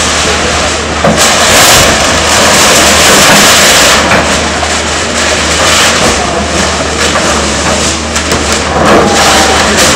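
Crawler excavator's diesel engine running under load while it knocks down a house, with loud crashing and scraping of falling masonry and metal roofing sheets, heaviest from about one to four seconds in and again near the end.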